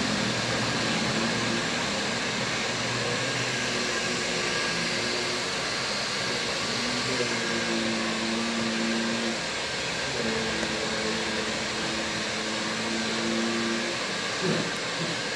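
Steady whooshing hum of an electric fan or blower, with a low steady tone that sets in and drops out a few times.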